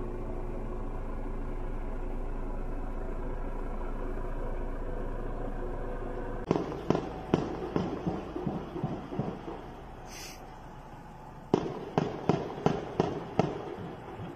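Steady drone of a helicopter hovering overhead, then about six seconds in a fast run of about eight sharp, echoing explosive bangs, and after a pause of about two seconds six more. These are the explosions heard during the police raid.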